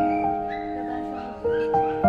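Gentle instrumental background music: slow melodic notes held over sustained tones, each changing every second or so.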